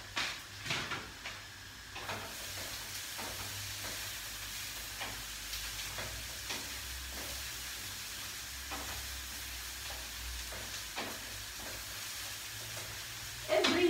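Vegetables sizzling in a frying pan, stirred with a utensil that taps and scrapes against the pan now and then.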